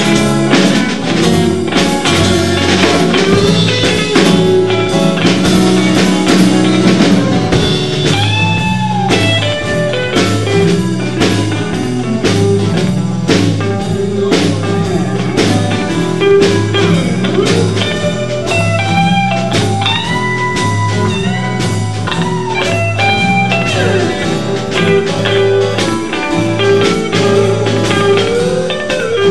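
Live blues-rock band playing an instrumental passage: electric lead guitar bending notes over a repeating bass guitar line and a steady drum-kit beat.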